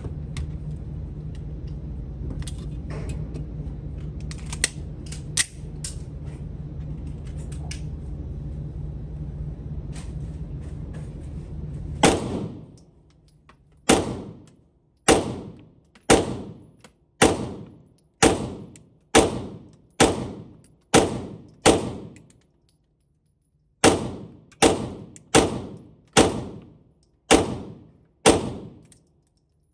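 Beretta M9A4 9mm pistol fired in a string of about sixteen shots, starting about twelve seconds in. The first ten come roughly a second apart, then after a short pause six more come slightly faster, each shot ringing out briefly. Before the shooting there is a steady low hum with a few light clicks.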